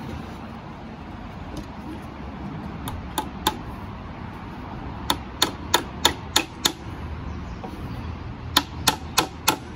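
Claw hammer driving a nail into a softwood board: two single taps, then quick runs of strikes about three a second, one around the middle and another starting near the end.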